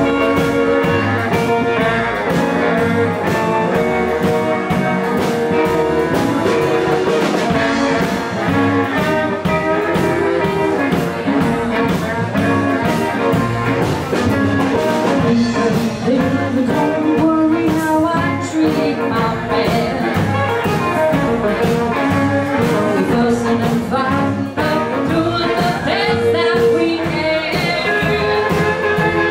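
A live band playing: electric guitar, acoustic guitar, drum kit and saxophone, with a woman singing at times.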